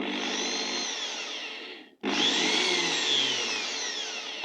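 Makita 6413 electric drill running under power, its motor whining with the pitch gliding down; it stops briefly about two seconds in and is run again. The drill is being test-run after repair and runs properly.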